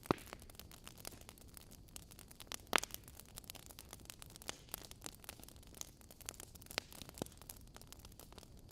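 Wood logs burning in a fireplace, crackling with irregular sharp pops over a soft steady hiss; the loudest pops come just after the start and about three seconds in.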